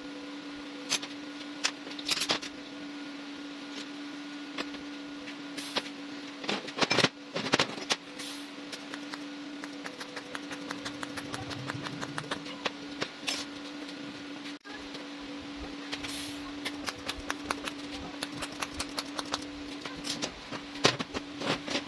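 A steady machine hum under frequent clicks, crackles and light clatter as stainless steel tubing is handled and TIG-welded on a steel workbench.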